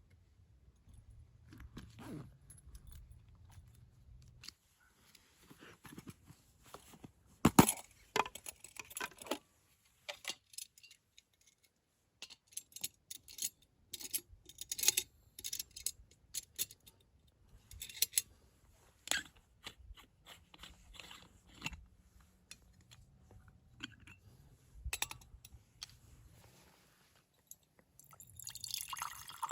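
Irregular small clicks, clinks and crunching rustles of objects being handled, with quiet gaps between them and a sharper knock about seven and a half seconds in.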